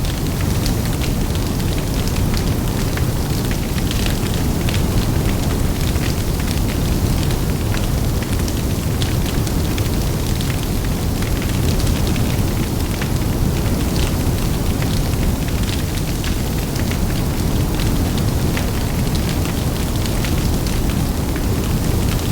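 Large bonfire burning: a steady low rumble of flames with frequent sharp crackles and pops.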